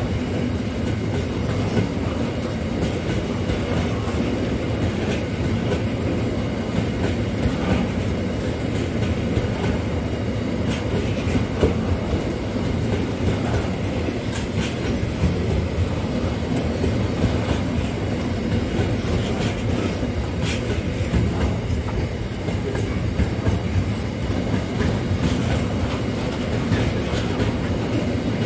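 A train's wagons rolling steadily past, with the clickety-clack of wheels over rail joints.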